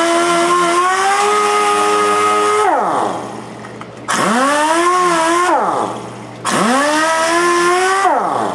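Dual-action (DA) sander with 80-grit paper running on the edge of a wooden deck board, its whine rising and sagging. It spins down about three seconds in, starts again a second later, spins down and restarts once more, and winds down again near the end.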